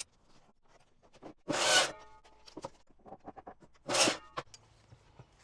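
Two short, loud, zip-like rasping scrapes about two and a half seconds apart, with small knocks and clicks of handling in between.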